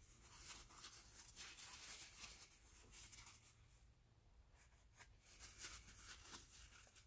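Faint rustling and rubbing of a cloth shop towel wiped over a 3D-printer hotend's heater block to clean off excess boron nitride paste, in two spells with a short pause between.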